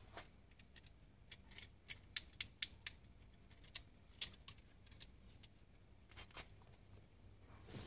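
Near silence broken by scattered faint clicks and light taps, with a quick run of four about two seconds in.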